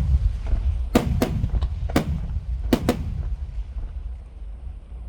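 Aerial fireworks shells bursting: about five sharp booms in the first three seconds over a continuous low rumble of echoing explosions, which eases off toward the end.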